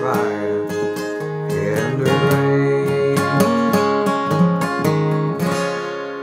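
Acoustic guitar strummed through the closing bars of a slow country song, the chords ringing and dying away near the end.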